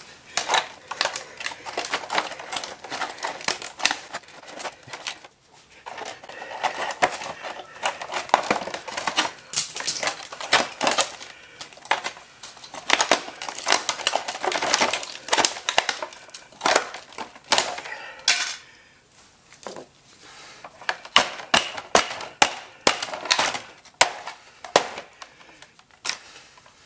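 Rapid, irregular cracking and snapping of an LG Flatron LCD monitor's screen layers as the cut edges are levered and knocked away by hand and with a hammer, with a short pause about two-thirds of the way through.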